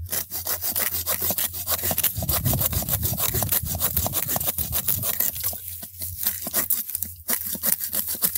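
Sawvivor folding bow saw cutting through a dead wooden log with quick, steady back-and-forth rasping strokes, with a couple of brief pauses near the end.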